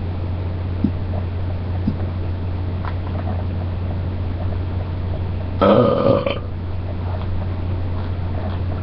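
A single loud burp lasting just under a second, a little past halfway through, over a steady low hum.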